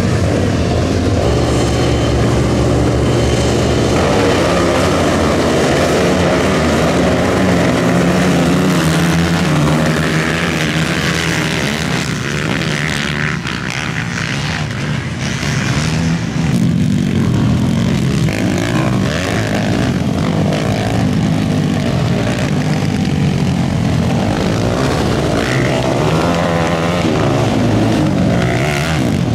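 Racing ATV engines running and revving as quads go around a dirt track, the engine pitch rising and falling.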